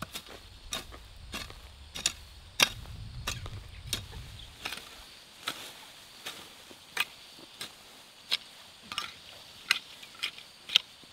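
Long-handled pronged garden hoe striking and scraping dry soil and dragging pulled weeds, sharp knocks about one and a half a second with rustling leaves between them.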